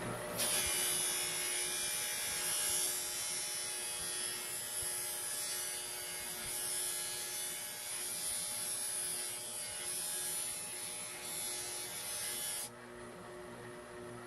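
Bench grinder motor running with a small metal part held against its spinning wheel, giving a steady high hiss. About twelve and a half seconds in the hiss cuts off suddenly and only the motor's hum remains.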